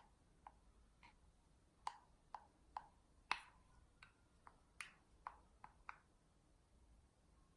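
A series of light, sharp clicks and taps of small hard objects, about a dozen spread unevenly over six seconds, the loudest about three seconds in.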